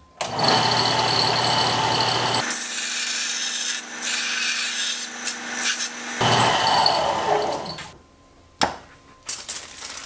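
Benchtop belt sander running while a steel radio mounting bracket is ground down against the belt. It stops about eight seconds in, followed by a sharp click and small metal parts clinking.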